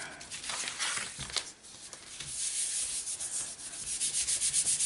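Hands rubbing and sliding cardstock against a paper grid sheet, pressing it flat: a dry papery swishing that turns into quick repeated strokes, about five a second, in the last couple of seconds.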